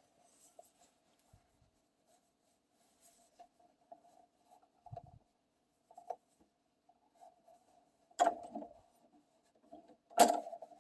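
Quiet handling at a sewing machine: faint scattered rustles and small clicks, then two sharp knocks, about eight and ten seconds in, the loudest sounds.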